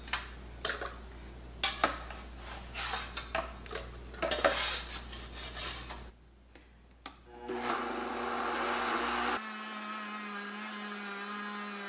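A metal spatula scrapes freeze-dried egg off a metal tray and knocks the pieces into a blender jar in separate strokes. About seven and a half seconds in, a countertop blender starts and runs steadily, grinding the freeze-dried eggs into powder.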